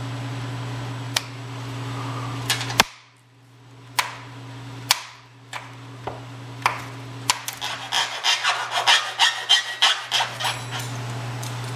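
Aluminum angle being notched with hand snips and cutters: separate sharp metal snips and clicks, then near the end a quick run of rasping file strokes on the cut edge, about four a second. A steady low hum sits underneath and drops out for a few seconds in the middle.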